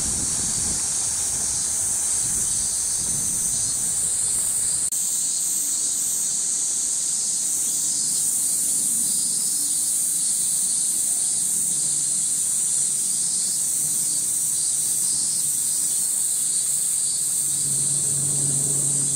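A steady, high-pitched buzzing chorus of summer cicadas.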